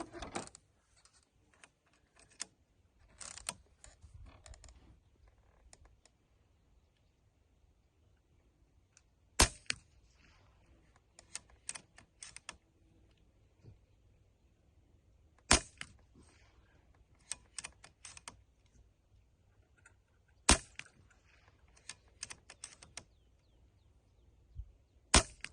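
Brocock Ghost .25 calibre PCP air rifle firing four shots, each a sharp crack about five to six seconds apart. Smaller clicks of the rifle being handled come between the shots.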